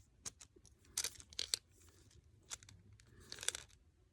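Handling of a small plastic pencil-lead case and its packaging: scattered sharp clicks and short crinkling rustles, the biggest about a second in and again about three and a half seconds in.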